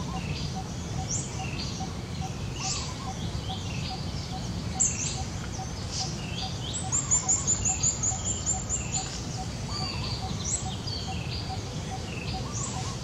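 Wild birds chirping and calling in short high notes every second or two, with a quick run of about a dozen high chirps a little past the middle. Beneath them are a faint even ticking and a steady low rumble.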